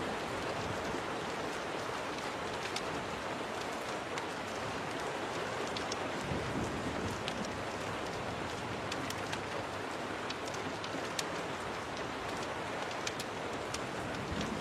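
Steady rain pattering on a window, with scattered sharp crackles and pops from a wood fire. A brief low rumble comes about six seconds in.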